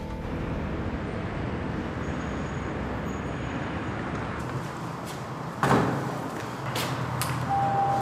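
Steady road-traffic noise, with one loud thump a little past halfway and a few lighter knocks after it. A steady tone begins near the end.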